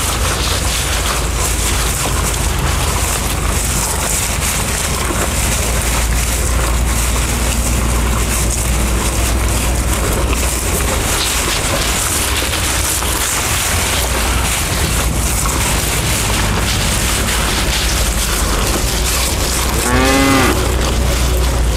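Bulls munching and chewing elephant grass at a wooden feed trough, over a steady low rumble. About twenty seconds in, one short moo.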